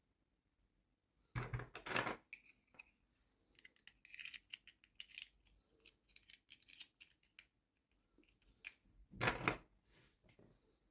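Toy packaging being opened and handled: two loud bursts of crinkling and cutting, about a second and a half in and near the end, with scattered small crinkles and clicks between.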